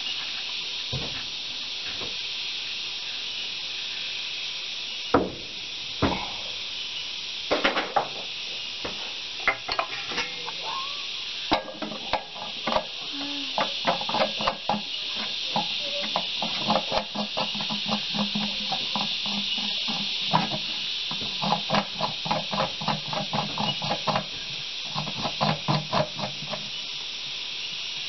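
Outer air-filter canister on a JCB backhoe engine being fitted and its retaining nut threaded on by hand: scattered metal knocks and clicks, then runs of quick rattling ticks, about four a second, through the second half. A steady high hiss sounds underneath.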